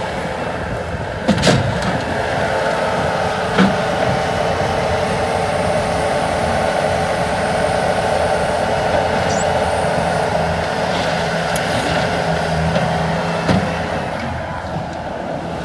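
Bobcat S185 skid-steer loader's diesel engine running steadily while the machine is put through its functions, with a few sharp clunks about one, four and thirteen seconds in.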